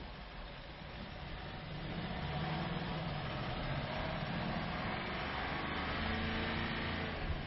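Range Rover TDV8's diesel V8 engine pulling at low speed off-road, its note growing louder about two seconds in and then holding steady. A short low knock near the end.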